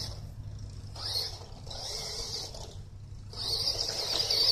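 Toy RC car's small electric motor whining in bursts as it is throttled up and eased off, loudest near the end.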